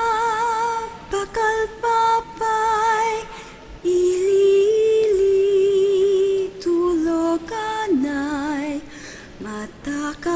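A woman's voice singing long held notes with a wavering vibrato, broken by short pauses, with no accompaniment standing out.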